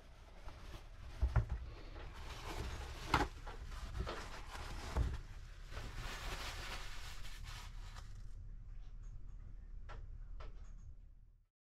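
Several sharp knocks and clatters over a steady low rumble and hiss, which cuts off suddenly near the end.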